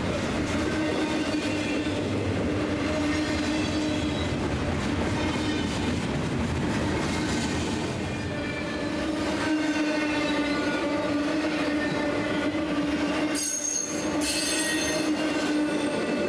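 Intermodal freight cars rolling past close by, a steady rumble and rattle of wheels on rail with a held squealing tone from the wheels. The sound changes abruptly about thirteen seconds in.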